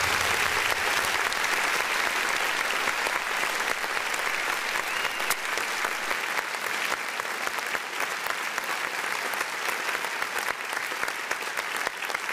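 Crowd applauding: dense, steady clapping that slowly fades.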